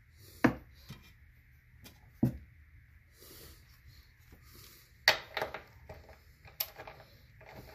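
Sharp metallic clinks and knocks of a wrench and bolts being handled while unbolting a mower transmission: two single knocks in the first couple of seconds, then a short burst of clattering about five seconds in and another clink near the end.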